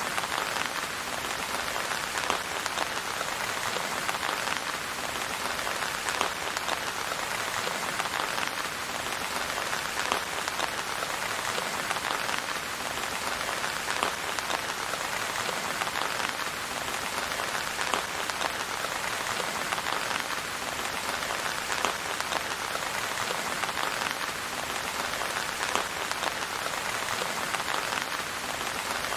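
Steady rain falling, with a constant hiss and many separate drop hits. No thunder.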